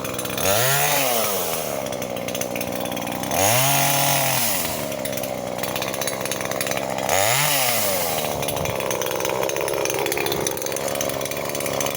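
Chainsaw engine revving up and falling back three times, each rise lasting a second or so, and running steadily between the revs.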